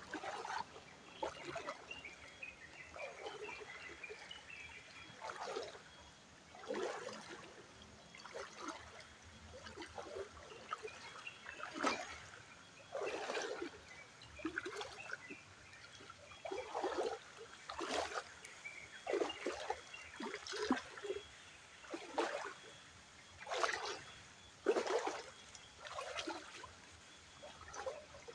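Footsteps wading through an ankle-deep stony stream, a short splash with each step at roughly one a second, uneven in timing and strength.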